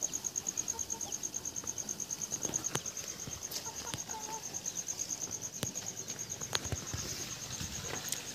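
An insect chirping steadily, a high-pitched pulsing trill repeating about eight times a second, with a few faint clicks scattered through it.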